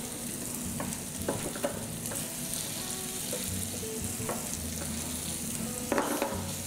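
Marinated chicken pieces frying in a little olive oil in a pan kept on low heat, sizzling steadily. A few light clicks and taps come through, near the start and again about six seconds in.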